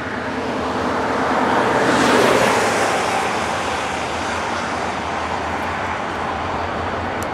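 Vehicle noise: a rushing sound that swells to its loudest about two seconds in and eases off, over a steady low engine drone.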